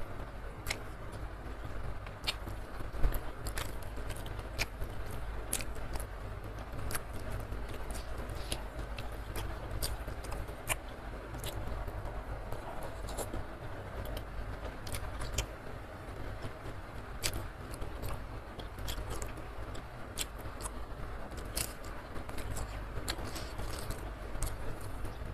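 Close-miked eating by hand: chewing with frequent sharp wet mouth clicks and smacks at irregular intervals, over a steady hiss of rain.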